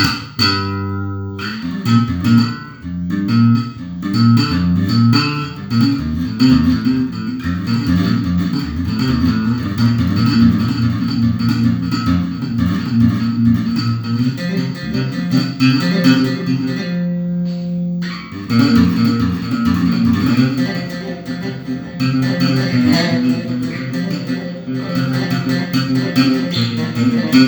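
Solo bass guitar played in a warm-up: quick runs of plucked notes, broken about two-thirds of the way through by one held note before the runs start again.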